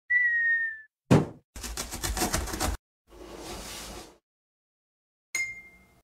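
A run of cartoon sound effects: a short whistle sliding slightly down in pitch, a sharp thump about a second in, a second of fast rattling, a softer whoosh, and a bright ringing hit near the end.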